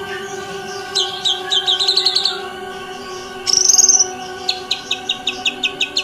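White-rumped shama singing: a burst of rapid sharp high notes, then a warbling trill about halfway, then a fast run of about ten repeated notes near the end.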